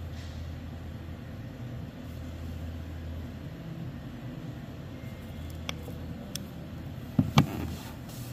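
Low steady machine hum in the background, with a few light clicks and then two sharp snaps close together about seven seconds in from a red-handled hand tool working the fan motor's wires.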